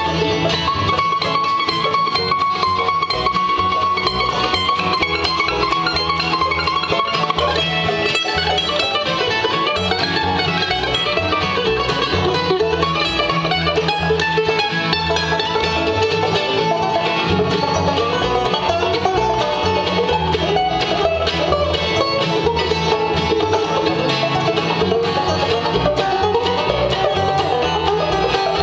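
Bluegrass band playing an instrumental break on mandolin, banjo and acoustic guitar over a steady rhythm.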